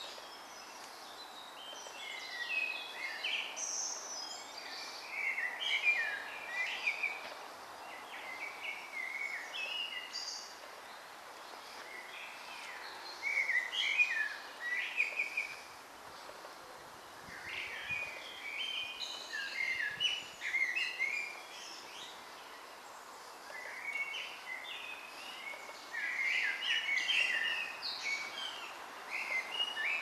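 Woodland songbirds singing: quick warbling phrases of a few seconds each, with short pauses between, over a faint steady background noise.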